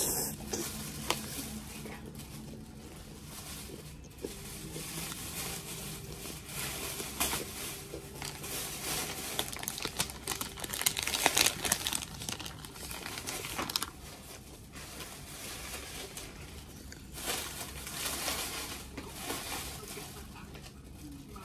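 Crinkling and rustling of a plastic snack wrapper handled in the fingers, in uneven stretches, loudest a little past the middle.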